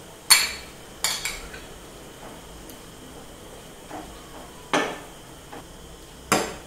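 Steel ladle stirring peas into a curry in a nonstick kadai. It knocks and scrapes against the pan in several sharp clinks, the loudest about a third of a second in, at about one second, near five seconds and near the end.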